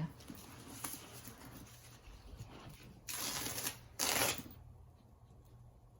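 Packaging wrapping rustling and crinkling as it is handled, with two louder crinkles about three and four seconds in.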